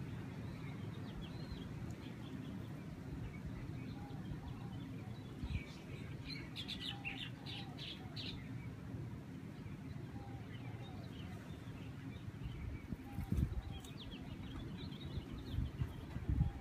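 Small birds chirping, with a quick run of chirps about six to eight seconds in and scattered calls later, over a steady low rumble of breeze with a few gusts.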